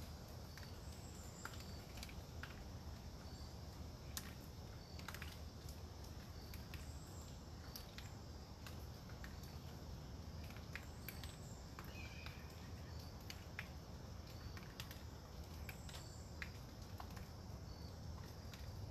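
Wind in the forest trees as a steady rushing noise with a low rumble. Scattered light ticks of drops fall from the storm-wet leaves, and faint short high chirps come now and then.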